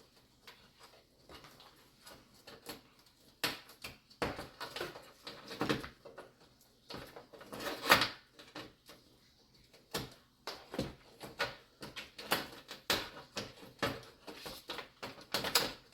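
Irregular clicks, knocks and clatter of hands working inside a desktop computer case, removing the old power supply and its cables. The loudest knock comes about eight seconds in.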